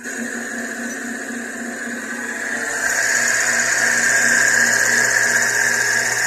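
Small CNC lathe turning a wooden blank with a 35-degree tool: a steady machine whine with the hiss of the cut, getting louder about three seconds in.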